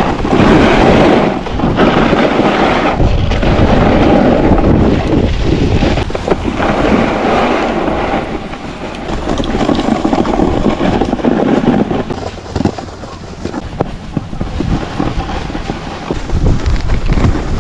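Wind buffeting the microphone over a continuous scraping hiss of sliding on packed snow. The level swells and eases, dipping for a few seconds in the second half.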